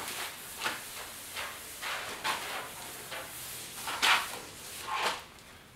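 A towel wiped across a truck's painted steel hood, cleaning it down with paint thinner, in about seven short, irregularly spaced strokes; the loudest comes about four seconds in.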